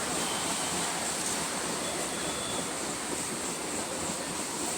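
Steady running noise of a moving ICF electric multiple-unit local train, heard from on board: an even rush of wheel and air noise with no distinct events.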